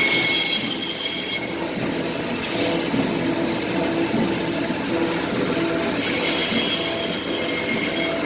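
Industrial four-roll frozen beef slicer running, its blade cutting frozen beef rolls. There is a steady machine noise throughout, and a high squealing whine that sounds for the first second or so and comes back about six seconds in.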